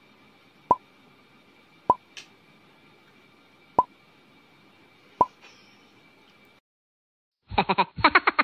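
Short 'pop' sound effects, four of them spaced a second or two apart, over a faint steady hiss. After a brief silence, a louder sound starts near the end.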